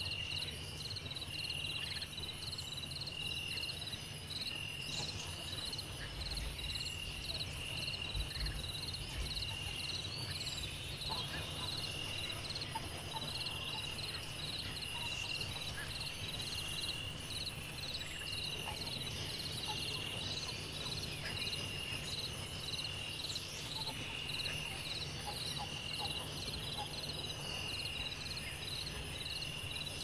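Insects chirping in steady, evenly spaced pulses, with two rhythms overlapping: a lower chirp about every second and a half and a higher one about twice a second, over a low steady hum.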